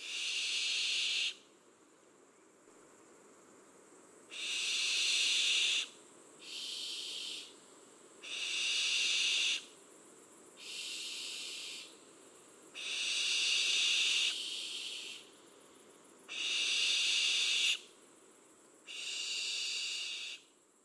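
Repeated high, drawn-out animal calls in the evening woods, each about a second long and coming every two seconds or so, some louder and some fainter.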